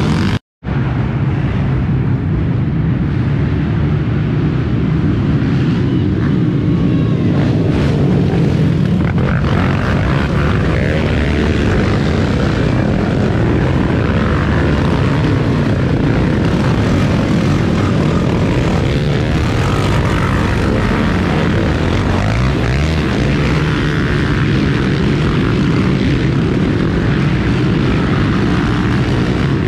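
Racing quad (ATV) engines running loudly and steadily, a dense engine drone with a momentary dropout about half a second in.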